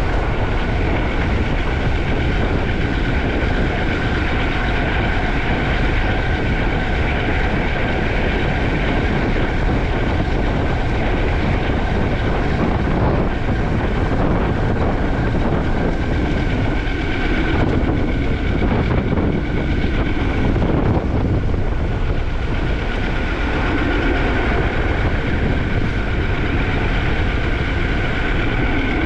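Riding noise from a Juiced HyperScrambler 2 e-bike under way: wind rushing over the helmet- or bike-mounted camera microphone, with a steady high two-note whine from the bike throughout.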